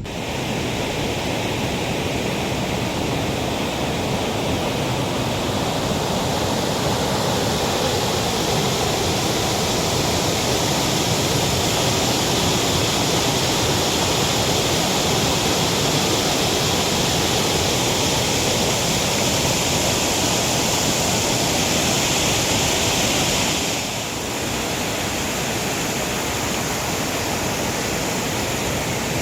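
Waterfall: water pouring down over rocks, a loud, steady rush. It drops a little in level about three-quarters of the way through.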